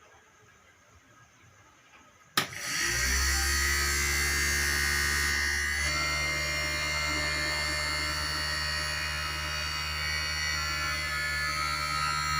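A switch clicks about two seconds in, then the small DC motor of a homemade PVC-pipe table fan spins up within half a second and runs steadily with a buzzing hum and a high whine.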